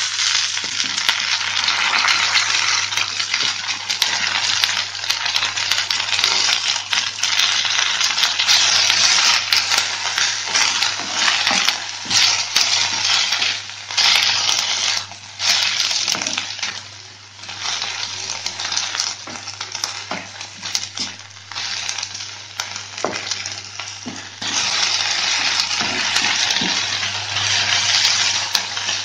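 Fresh drumstick (moringa) leaves sizzling in hot oil in a metal kadai as they are stirred and tossed with a wooden spatula, with light clicks and scrapes of the spatula against the pan. The sizzle drops away briefly a few times in the middle.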